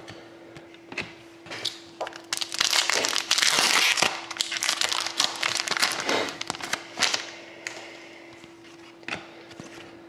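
A foil trading-card pack wrapper being torn open and crinkled by hand: a dense crackling run from about two seconds in to about seven and a half, loudest between two and four seconds in, with a few sharp clicks before and after.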